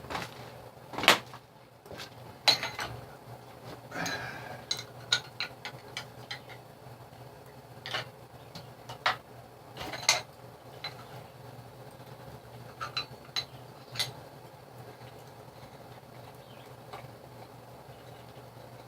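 Scattered metallic clinks and knocks of tools and metal parts being handled, at irregular intervals, over a steady low hum.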